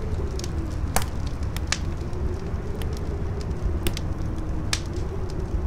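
Campfire crackling, with several sharp pops, over steady low wind noise and a howl that wavers slowly in pitch.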